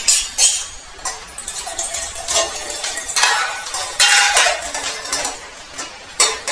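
Metal kitchen utensils clinking against pots and dishes: a run of sharp, irregular clinks, some ringing briefly.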